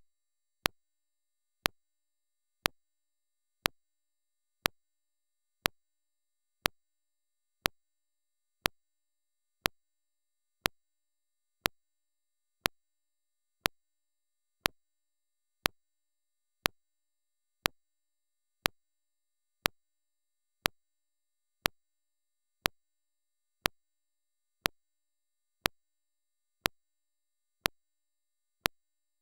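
A short, sharp tick repeating evenly about once a second over otherwise near silence, like an electronic timing click in the recording.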